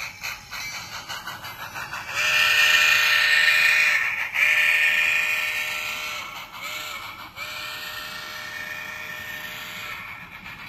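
Sound decoder of an N scale Bachmann USRA 4-8-2 Mountain steam locomotive playing a rhythmic exhaust chuff, then a chime steam whistle blowing four blasts (long, long, short, long), the grade-crossing signal, through the model's small speaker.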